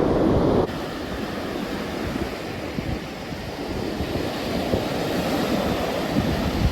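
Ocean surf washing on the beach with wind on the microphone, an even rushing noise that drops suddenly in level a little under a second in.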